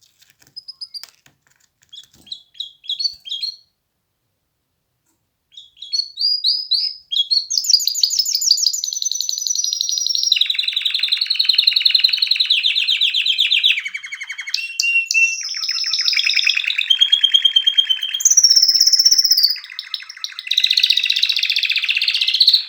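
Domestic canary singing: a few short chirps, a pause, then a long unbroken song of rapid rolling trills and repeated notes that shift to a new phrase every second or two.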